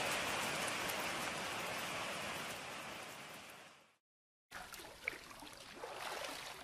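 Steady rain that fades out over about four seconds, then a short silence. After the gap comes fainter water, lapping and splashing, with one sharp splash about five seconds in.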